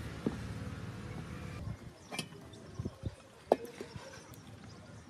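A few scattered knocks and taps of kitchen utensils, the sharpest about three and a half seconds in, over a low steady hum that drops away about a second and a half in.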